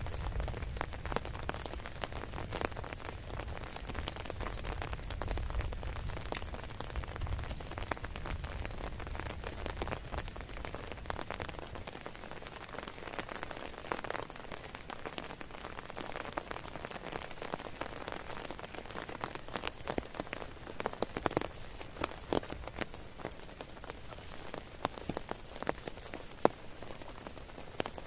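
Rain pattering and dripping in scattered clicks, with a steady high-pitched trill that pulses more strongly in the last several seconds. A low rumble under it fades out about twelve seconds in.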